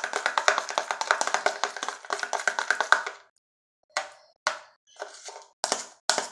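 A utensil stirring thick shampoo-and-soap slime in a container: rapid sticky clicking and tapping, breaking off briefly about halfway, then a few separate stirs.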